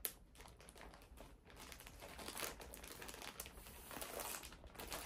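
Plastic shipping bag crinkling and rustling faintly as it is handled, irregular, with a sharp tick at the start and somewhat louder rustling in the second half.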